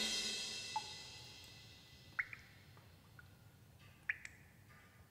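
Soundtrack music fading out, its ringing tail dying away over about two seconds, followed by a few faint, sparse, short high plinks.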